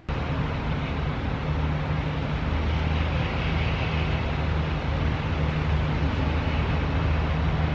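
Steady outdoor background noise: a low, even drone under a constant hiss.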